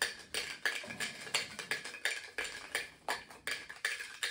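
Small collectible packaging being handled at a table: a steady run of light clicks and rattles, about three a second.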